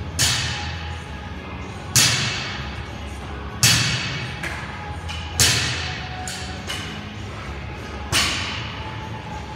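Five sharp thuds with a ringing tail, spaced about every one and a half to two seconds with a longer gap before the last, over background music.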